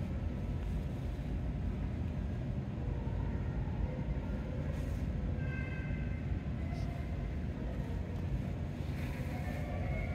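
Steady low rumble of indoor room noise, with faint distant voices about halfway through and again near the end.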